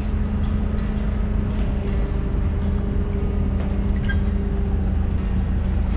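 Sailboat's inboard engine running steadily while motoring, a low drone mixed with wind and water noise.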